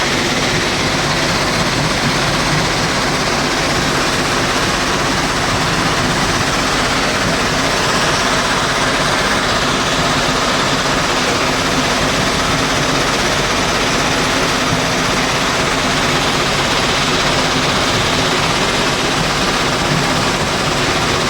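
Stone crusher running steadily: a loud, even mechanical rattle and grind with a low hum under it, without a break.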